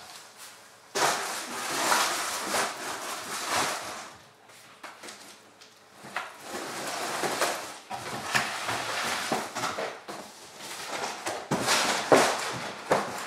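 Artificial Christmas tree's plastic branches rustling and scraping as the tree is folded and pushed into a cardboard box, with cardboard flaps handled and a few knocks, the loudest near the end.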